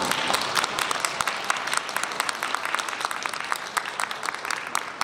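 Audience applause: many people clapping at the end of a violin piece.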